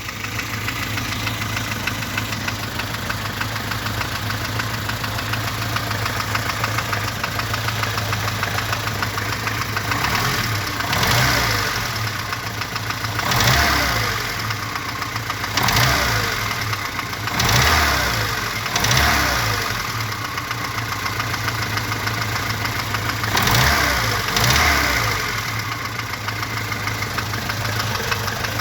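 VAZ-2103 four-cylinder petrol engine idling with a rhythmic knock of unknown cause. From about ten seconds in, the throttle is blipped about seven times, the revs rising briefly and falling back to idle each time, with the knock still heard.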